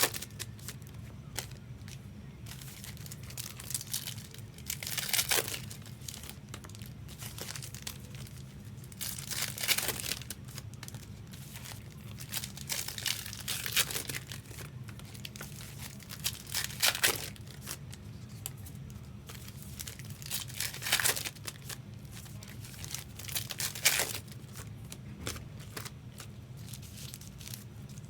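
Trading-card pack wrappers being torn open and crinkled, in short bursts every few seconds, over a steady low hum.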